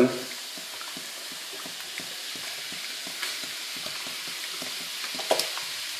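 Coca-Cola poured from a bottle over raw pork spare ribs in a stainless steel pan, the fizzing cola giving a steady crackling hiss, with a short louder blip about five seconds in.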